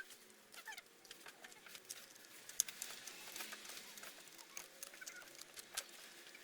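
Scattered light clicks and taps of laptop parts being handled while the processor is swapped, with a sharper click about two and a half seconds in and a few faint chirps near the start.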